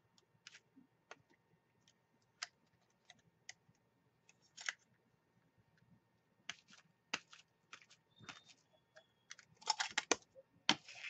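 Scattered light clicks and taps of a rubber stamp being handled and pressed onto a paper envelope on a tabletop, with a louder flurry of knocks and rustles near the end as the stamp is lifted and set down.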